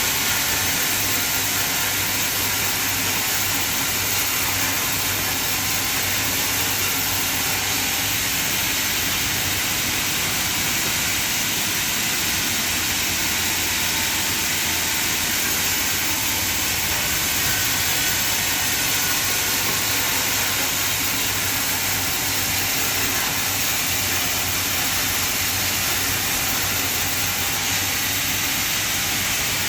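Sawmill machine running steadily: an even, loud hiss with a low hum underneath, with no break or change.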